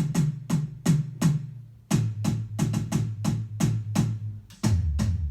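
Electronic drum kit tom pads struck over and over in turn: a run of hits on the high tom, then, about two seconds in, the medium tom lower in pitch, and near the end the low (floor) tom, lower still.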